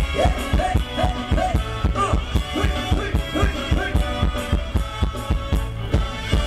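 Live band playing Thai ramwong dance music over a PA, with a steady drum beat and a melody line above it.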